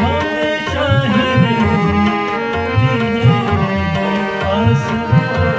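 Live music playing: a steady drum beat, roughly two beats a second, under held instrumental notes.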